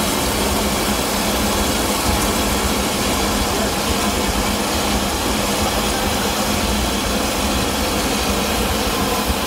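Steam locomotive No. 1180 running with a steady hiss and low rumble, without distinct separate exhaust chuffs.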